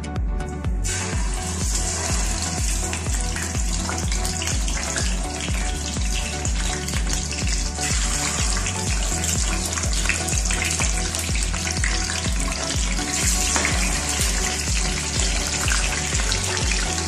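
Kanduli (sea catfish) pieces frying in hot oil in a pan, a steady sizzle that starts about a second in. Background music with a steady bass beat plays throughout.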